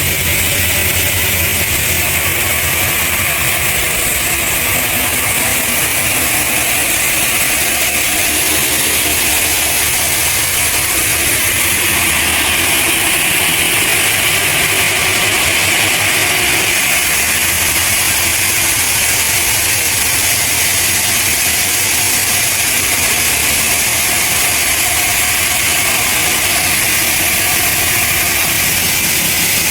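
Heavy machinery running steadily and loudly, with no breaks or changes.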